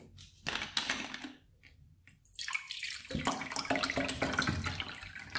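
A plastic water bottle's cap is twisted open with a short crackle about half a second in. From about two seconds in, still water is poured from the bottle into a plastic bowl, splashing steadily for about three seconds.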